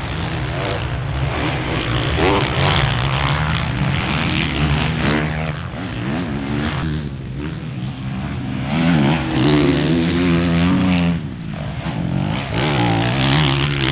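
Several motocross race bikes' engines revving hard on the track, the pitch climbing and dropping again and again as the riders accelerate and back off.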